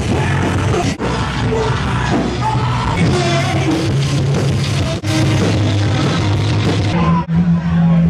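Loud hard rock band playing, with a singer singing and yelling over heavy bass and drums.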